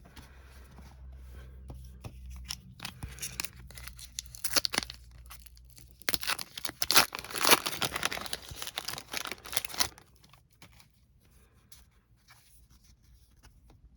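Trading-card pack wrapper being torn open and crinkled by hand, in irregular crackly bursts that are loudest in the middle. After that there is only faint handling.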